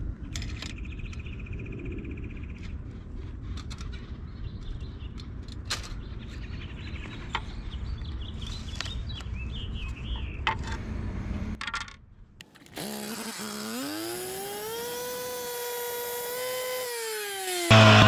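Low background rumble with light clicks and knocks from handling the paver and measuring tools. Then a power saw spins up with a rising whine, holds speed, and drops in pitch, and just before the end a loud, harsh cut into the concrete paver begins.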